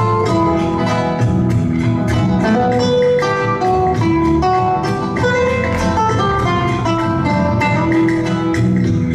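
Flamenco guitar music, with quick strummed and plucked guitar notes over a steady beat.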